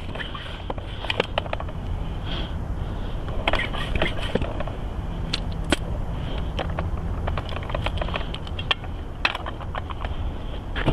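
Scattered clicks, taps and short scrapes of hands working a folding road-bike tire and its bead around a wheel rim, over a steady low background rumble.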